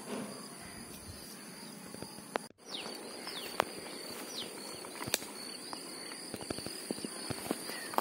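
Lakeside ambience: a steady high-pitched insect drone, with a few short falling bird chirps and scattered faint clicks. The sound cuts out completely for a moment about two and a half seconds in.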